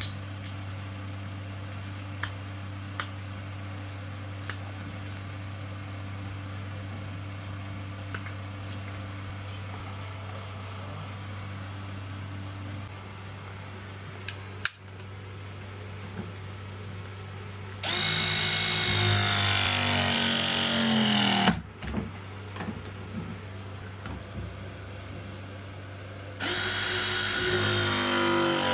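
Ridgid ProPress pressing tool running two press cycles on copper fittings. Each is a few seconds of loud motor whine that falls in pitch as the jaws close under load. The second starts about eight seconds after the first ends.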